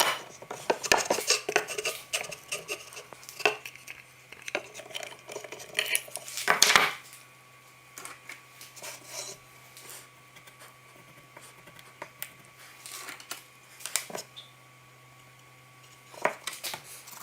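Hard objects handled and set down: irregular metallic clinks, clicks and knocks, busiest in the first seven seconds with a louder cluster about six and a half seconds in, then only a few scattered taps. A faint steady hum lies beneath.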